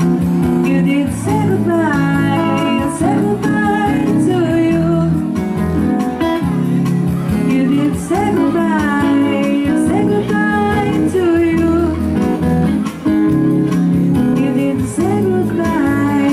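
A song played by a band: a singing voice carries the melody over guitar and sustained low bass notes.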